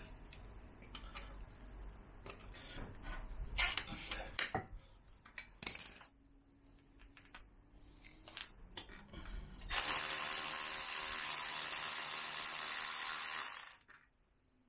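Metal clinks and knocks of a socket and wrench on a BMW R1200GS's rear wheel bolts, then, about ten seconds in, a cordless power ratchet runs steadily for about four seconds, spinning a wheel bolt out, and stops suddenly.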